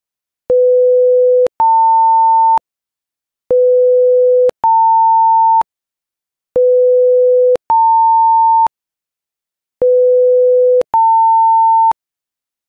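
Computer-generated beep tones from an Auto Mouse Click macro's two Beep actions, looped: each run plays a steady lower tone for about a second, then a higher tone for about a second, with a click at the start and end of each tone. The pair repeats four times, about every three seconds, with silence between, one pair for each call of the looped beep script.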